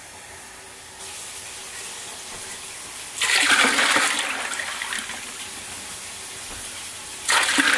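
Water poured from a jug splashing into a plastic tub of brine and ice. A loud gush starts about three seconds in and tapers to a lower steady splashing, and a second gush comes near the end.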